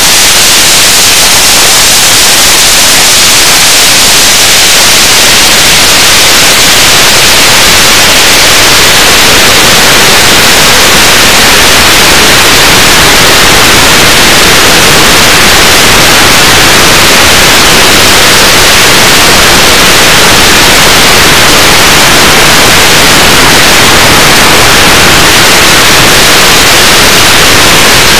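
Loud, steady static hiss like white noise, strongest in the treble, with no engine tone or other event standing out.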